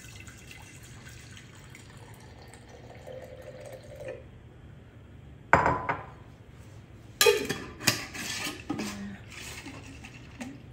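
Broth in a glass jar with leftover lard: liquid sloshing and glass clinking. There is a sharp knock about five and a half seconds in and two more a couple of seconds later.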